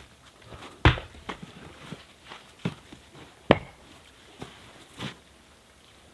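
Maul blows splitting birch firewood on a chopping block: two sharp, loud strikes about a second in and about three and a half seconds in, with lighter knocks of wood between them.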